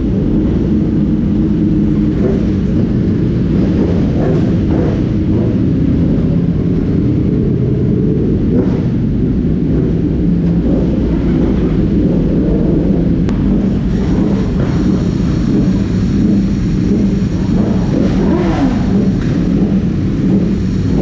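Several sportbike engines idling together inside a garage, a steady, dense rumble. Near the end one engine's pitch briefly rises and falls.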